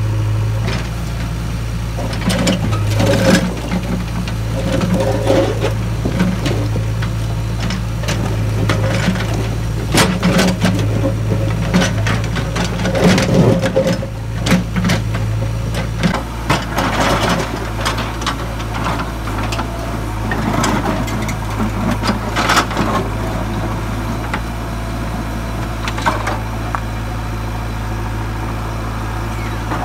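JCB 3DX backhoe loader's diesel engine running steadily under load as its backhoe bucket digs through broken rock, with irregular knocks and clatter of stone against the steel bucket.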